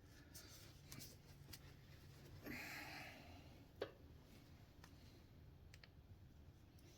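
Near silence: faint room tone with a few soft clicks. There is a short, soft hiss a little before halfway, and a single sharper click just after it.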